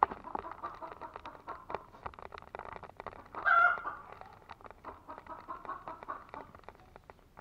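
Domestic chickens clucking, with a louder call about three and a half seconds in, over many small clicks and rustles.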